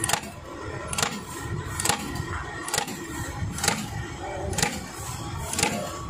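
Terminal crimping machine cycling: its applicator ram strikes with a sharp clack about once a second, seven even strokes, each crimping a terminal onto a wire end.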